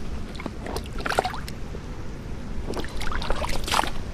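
Short splashes and scrapes in shallow tide-pool water as someone wades and works a small hand rake among rocks: a cluster about a second in and a louder one near the end, over a steady low wind rumble on the microphone.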